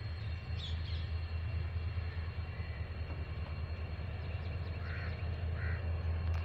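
WDG-4D diesel locomotive running with a low, steady engine drone as it moves slowly towards the platform, growing slightly louder near the end. A few faint bird calls sound over it.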